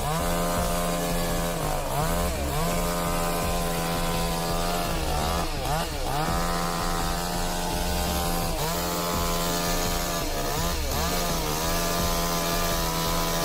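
Chainsaw running at high revs, its pitch dipping briefly and coming straight back up several times as it is loaded in the cut.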